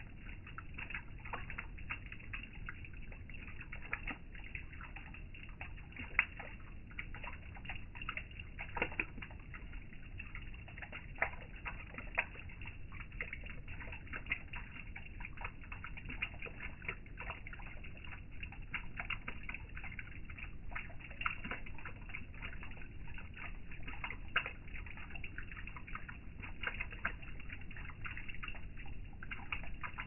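Small waterfall trickling and dripping, with frequent irregular drip splashes over a low, steady rush of water.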